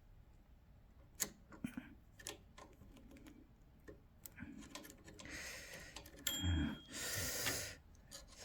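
Olympia Simplex typewriter being worked by hand while its bell is tested: scattered sharp mechanical clicks, then a rasping carriage movement about five seconds in, with a brief faint metallic ring just after six seconds.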